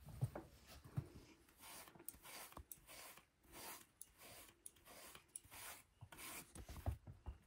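Soft rasping strokes of a brush through a cat's fur, repeating about twice a second.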